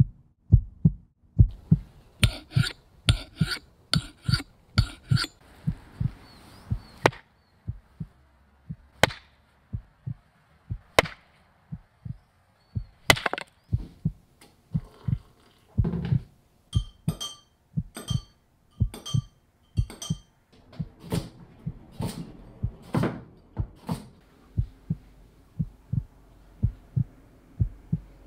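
A steady, heartbeat-like low thump about one and a half times a second, with sharp taps and clinks over it from hands handling a teacup, teaspoon and kettle. The clinks come in quick runs early on and again in the middle, and die away near the end, leaving only the thumping pulse.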